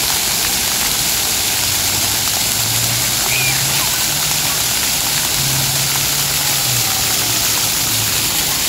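Splash-pad fountain jets shooting up from the pavement and water cascading over an artificial rock wall, splashing onto wet concrete: a steady rush of spraying and falling water.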